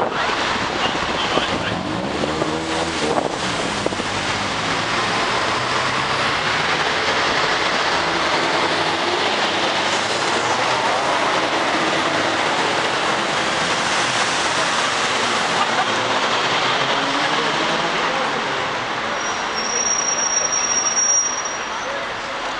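Busy city street traffic: double-decker buses and cars driving past, a steady wash of engine and tyre noise. Near the end a high, thin squeal lasts about two seconds.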